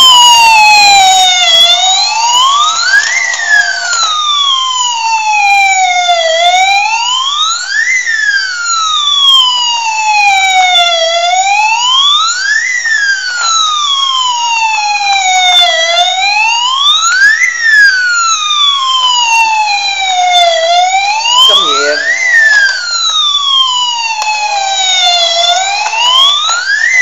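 Battery-operated toy police car playing its electronic wail siren, the pitch rising quickly and falling slowly, repeating about every five seconds.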